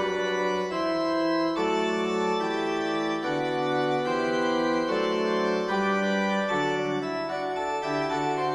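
Background music of held keyboard chords, changing every second or so.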